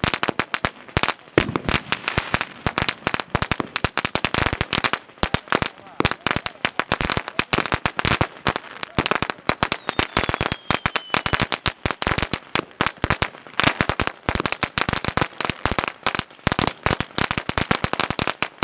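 Mad Ox T733C 1000-shot color paper firecracker roll going off: a dense, irregular chain of sharp bangs, many per second, without a break.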